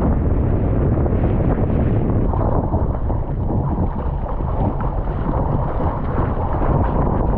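Strong wind buffeting the microphone in a steady, loud rumble, mixed with water rushing and splashing around a surfski on rough water.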